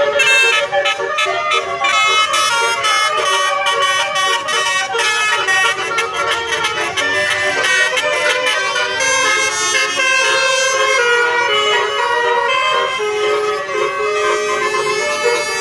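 Bus telolet horn, a multi-tone air horn, playing a fast, loud melody of stepping notes.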